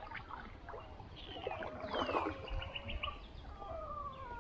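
A dog whining: a string of high, wavering whines, the longest one slowly falling in pitch near the end, from a restless dog.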